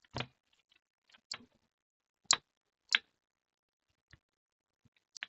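Scattered sharp clicks and taps of small plastic and metal parts being handled while the HP EliteBook 820 G3 laptop is closed up: about six separate clicks at uneven intervals, the two loudest in the middle.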